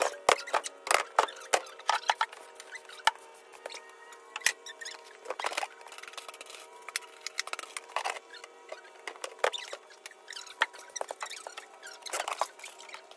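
Irregular sharp clicks, knocks and scratchy rustling at close range, over a faint steady hum.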